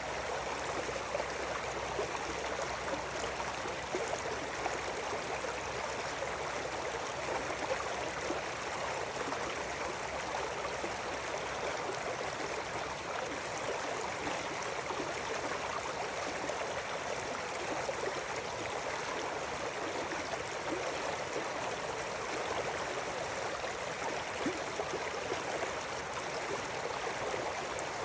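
A river flowing over rocks: a steady, even rush of water with small splashes and gurgles throughout.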